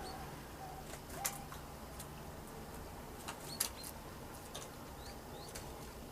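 Small birds giving short, high, rising chirps, among a few sharp clicks, the loudest about a second in and again midway.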